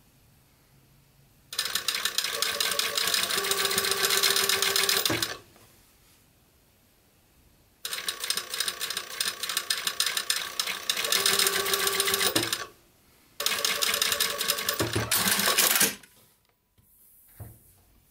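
Juki industrial sewing machine stitching in three runs of a few seconds each, a fast rattle of stitches, with short pauses between as the fabric is guided; light handling sounds at the end.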